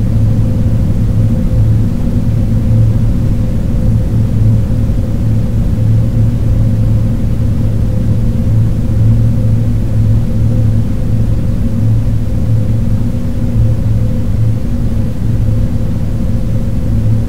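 Steady, deep electronic drone: a low rumbling hum with fainter held tones above it over a bed of muffled white noise, unchanging throughout.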